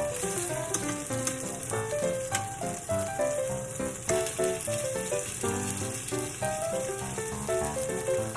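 Food sizzling in hot oil in a frying pan, a steady hiss that cuts in sharply at the start, with background music playing.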